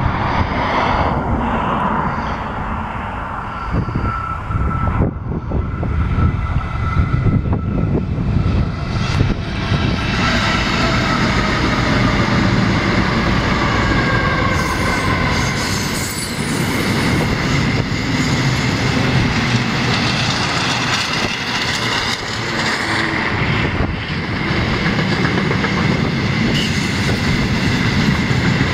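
A heavy freight train passing close by: its four diesel locomotives rumble past over the first ten seconds or so. Then a long string of wagons loaded with steel coils rolls by with a steady rolling din and a high wheel squeal.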